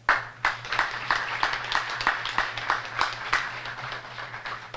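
Audience applauding, many hands clapping at once. It starts suddenly, then tapers off and stops near the end.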